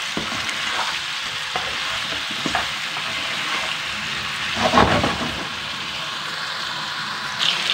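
Mixed vegetables (potato, carrot, green beans, cauliflower) sizzling in oil with spices in a nonstick wok while a spatula stirs them, browning them before the water is added. Steady sizzle with a few scrapes of the spatula on the pan, the loudest about five seconds in.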